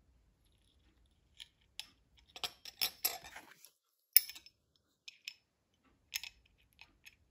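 Scattered light clicks and rustles of small metal craft parts being handled: beading wire drawn through a thin perforated metal disc, a small charm and a silver crimp tube, with needle-nose pliers closing on the work near the end. The clicks are irregular, with the sharpest about four seconds in.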